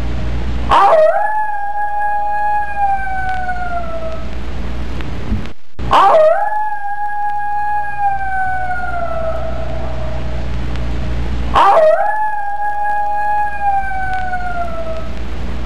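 Three near-identical long howls, about five seconds apart; each sweeps up fast, holds, then slides slowly down. A steady low hum fills the gaps between them.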